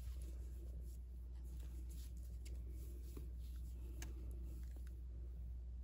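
Faint rustling of lace trim being handled and unrolled, with a few light ticks, over a steady low hum.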